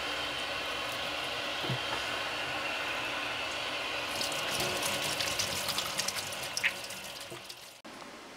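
Water running from a tap into a sink during clean-up. It splashes more from about halfway through, then tails off and stops near the end.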